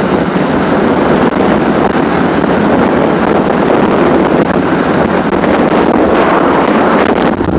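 Loud wind rushing over the microphone in a moving vehicle, a steady noise that cuts off suddenly at the very end.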